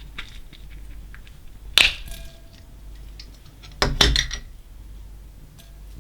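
Hard objects clinking during slime mixing: one sharp clink with a brief ring about two seconds in, then a short rattling cluster of clinks around four seconds, with quiet handling noise between.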